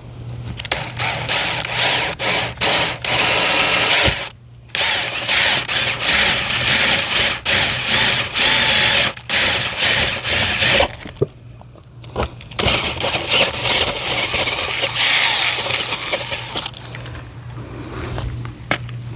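Power drill boring a roughly half-inch hole into a garage wall and its sheathing, the trigger squeezed in repeated stop-start bursts with two short pauses, over a steady low hum.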